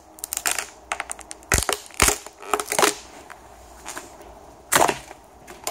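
Several sharp cracks and snaps as the edge of a fibreglass mould is prised off its plug and the hot-glued Corex strip. The loudest come about two seconds in and near the end.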